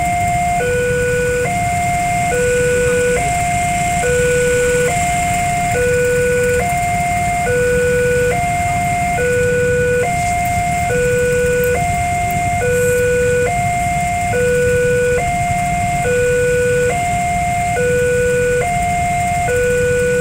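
Railway level-crossing warning alarm sounding while the crossing is closed: an electronic two-tone signal that alternates evenly between a higher and a lower tone, each held just under a second, over a low rumble.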